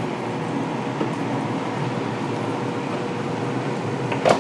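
Steady fan whirr of a Ninja dual-zone air fryer running, with a single knock near the end.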